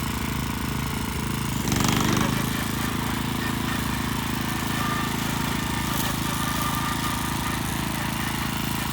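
An engine running steadily with a fast, even firing pulse, briefly louder about two seconds in.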